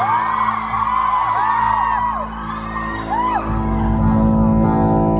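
Concert audience whooping and screaming over a steady amplified drone from the band. About three and a half seconds in, the drone swells louder with a pulsing low end.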